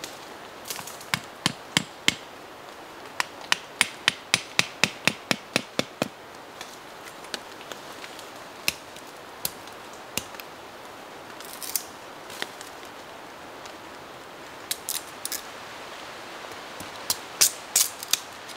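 Sharp knocks and taps from tool work by hand. A few come about a second in, then a fast run of about four a second, scattered single strikes, and a loud cluster near the end, over a steady background hiss.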